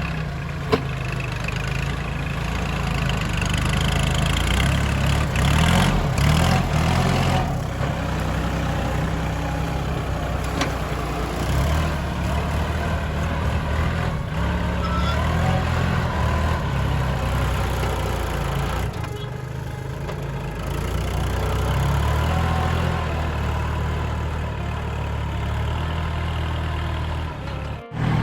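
Tractor engine running steadily as it plows a wet rice paddy.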